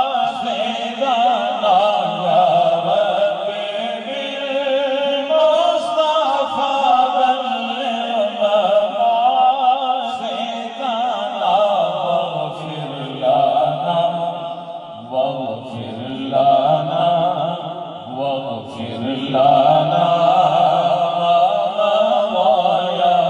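A solo male voice chants a devotional Urdu couplet in long, drawn-out melodic lines with a wavering vibrato. The pitch drops lower partway through and rises again near the end.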